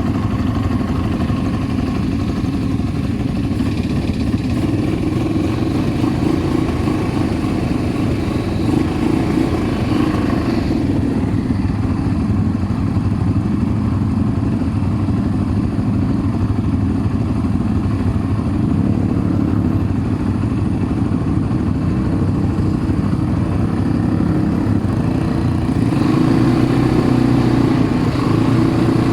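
An ATV engine running steadily under way, growing a little louder near the end.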